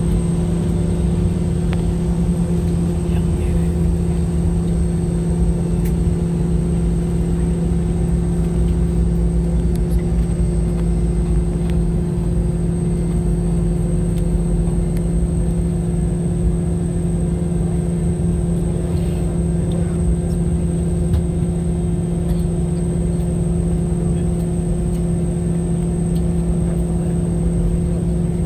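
Cabin noise of a Boeing 717-200 taxiing: its rear-mounted Rolls-Royce BR715 engines running at low taxi power, a steady hum and rumble with a thin high whine.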